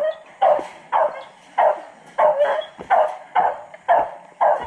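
A dog barking over and over in an even rhythm, about two barks a second.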